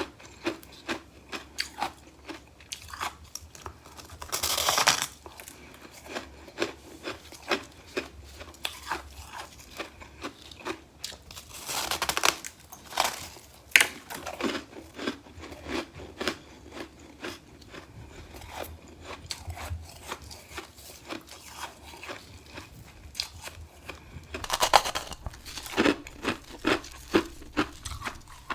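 A chunk of humidifier frost crunched and chewed in the mouth, close to the microphone: a steady run of small crisp crunches, with louder crunching bites at about five seconds in, around twelve to fourteen seconds and again near the end.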